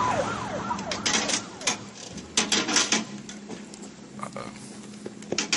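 Emergency vehicle siren in a fast up-and-down yelp, fading out about a second in. Several sharp clicks and knocks follow.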